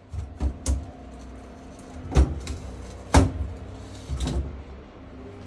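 A handful of sharp knocks and thumps from installation work, about five in all, irregularly spaced. The loudest two come near the middle, about a second apart. No drill motor is running.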